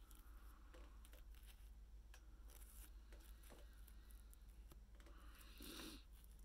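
Near silence: faint small clicks and rustles of fingers working thread and flash material at a fly-tying vise, with a soft rustle near the end.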